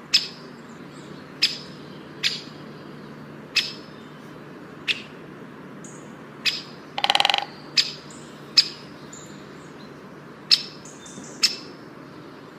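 Kincrong bird calling: short, sharp chirps repeated about once a second, with one buzzy, rattling call about seven seconds in.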